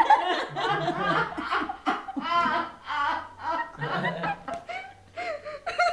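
Adults laughing in short repeated bursts of chuckling.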